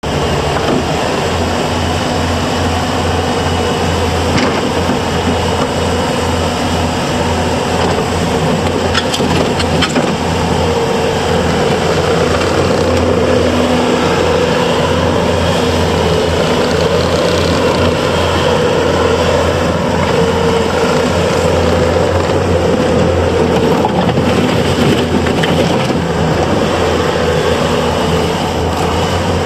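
Bobcat T590 loader's diesel engine running steadily at a constant speed.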